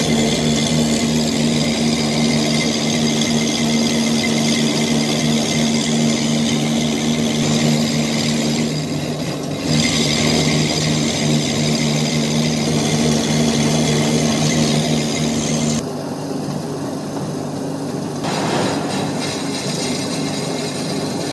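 Metal lathe running, with a steady hum and whine, as a cutting tool machines a large metal pulley spinning in the chuck. The steady hum drops away for about two seconds near the end, then the noise comes back.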